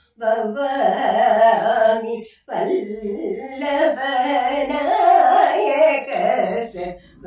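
An elderly woman singing unaccompanied in Carnatic classical style, her voice gliding and wavering through ornamented phrases. She takes a short breath about two and a half seconds in, then sings on.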